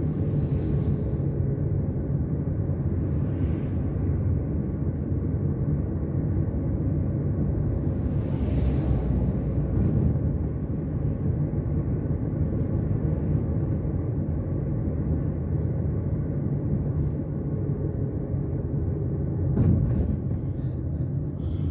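Steady low rumble of a car's road and engine noise heard from inside the cabin while driving at a steady speed.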